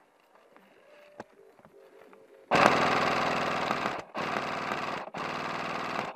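Airsoft RPK firing on full auto in three bursts: a first of about a second and a half, then two of about a second each, the rapid shots evenly spaced.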